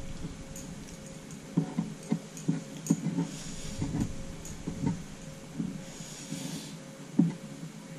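Eating sounds: a bare hand mixing and squeezing cooked rice on a plate, with soft mouth-chewing smacks. Irregular quiet taps throughout, with two short wet squishes about 3 and 6 seconds in.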